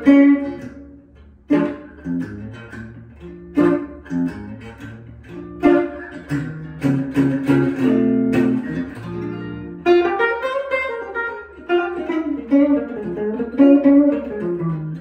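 Eko 100 short-scale archtop guitar being played: chords struck and left to ring, with moving lines of single notes in between.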